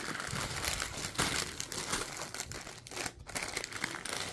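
Clear plastic wrapping crinkling irregularly as hands handle it and pull a felt dust bag out of it.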